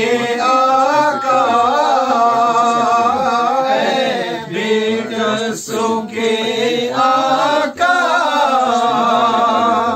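A man sings an Urdu naat unaccompanied, drawing out long ornamented notes with short breaths between phrases, over a steady low drone.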